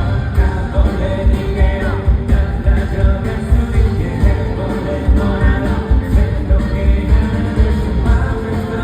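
Live pop-rock band music with a male lead vocal singing over a steady, heavy beat.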